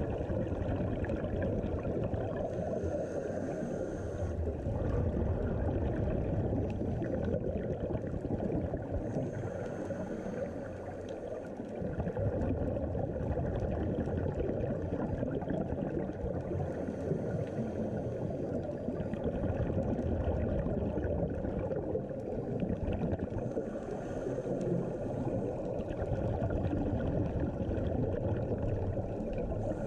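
Scuba regulator breathing heard underwater, muffled through the camera's waterproof housing: a high hiss on each inhalation, about every seven seconds, alternating with a low rumble of exhaled bubbles.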